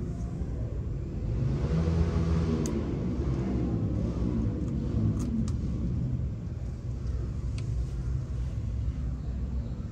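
Low rumble of motor traffic that swells as a vehicle passes, about a second and a half in, then eases back to a steady drone. A few faint clicks are heard over it.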